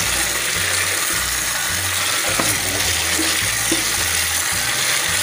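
Tap water running steadily over red chillies and shallots in a plastic strainer and splashing into a stainless steel sink.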